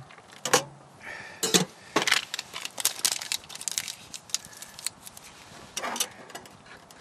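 Metal camp cookware clinking and knocking: a small kettle set down on a canister gas stove on a metal tray and a metal mug handled, a sharp knock about half a second in, a quick run of clinks in the middle and one more knock near the end.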